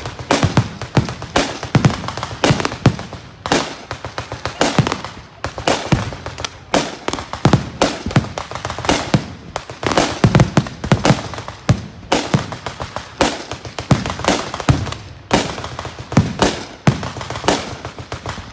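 A loud, continuous barrage of sharp bangs and cracks, several a second in an irregular run: the simulated anti-aircraft fire of an air raid reenactment.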